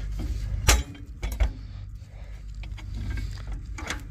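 A few sharp knocks and clicks, one about a second in and a cluster near the end, over a steady low rumble.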